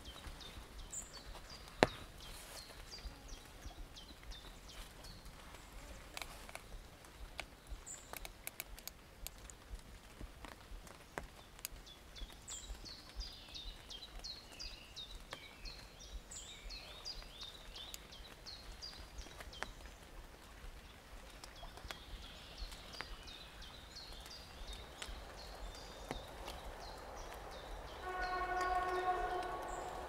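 Forest songbirds chirping: many short, high, falling notes, busiest in the second half. There is one sharp click about two seconds in. Near the end a steady horn-like tone with several overtones sounds for about a second and a half.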